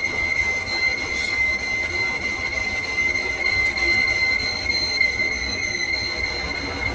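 A workshop machine running with a steady, high-pitched metallic squeal over a low rumble, the sort of whine a lathe makes while cutting metal.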